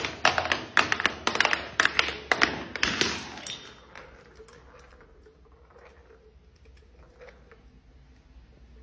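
Glass vodka bottle tumbling down stone and tile stairs: a quick, irregular run of hard knocks and glassy clinks for the first three seconds or so as it strikes the steps and breaks. After that only a few faint ticks.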